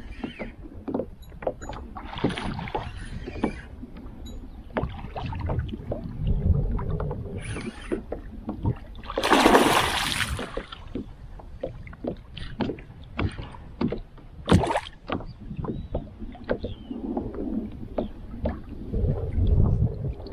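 Hooked peacock bass thrashing at the surface beside a kayak: a loud splash lasting about a second, starting about nine seconds in, and a shorter sharp one a few seconds later, among many small knocks and clicks of the kayak and tackle.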